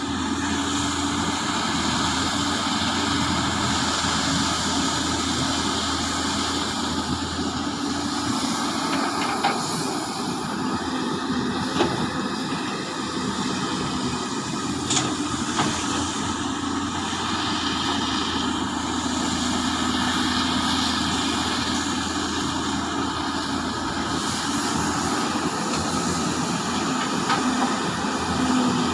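Heavy diesel mining machinery running steadily, a continuous engine drone with a few short clanks midway.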